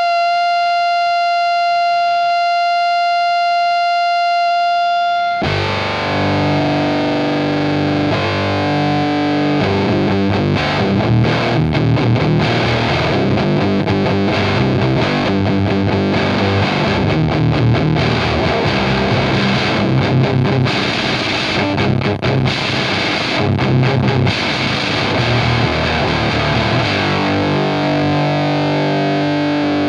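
Fuzz pedal's feedback loop howling as one steady, slightly wavering high tone for about five seconds. It cuts off abruptly and heavily fuzzed, gnarly electric guitar takes over, played on a Fender Jaguar's bridge humbucker through a valve amp and 4x12 cabinet.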